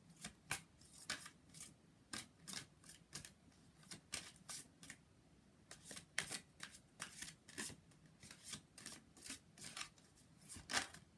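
A deck of angel oracle cards being shuffled by hand: a run of soft, quick card slaps and swishes, about two or three a second, with one louder slap near the end.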